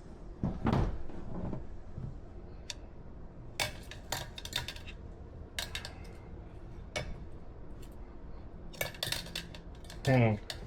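Metal tire irons clinking and scraping against the wheel rim in scattered strokes as the tight tire is levered onto a Honda CRF110F rear wheel. A short, loud vocal sound comes near the end.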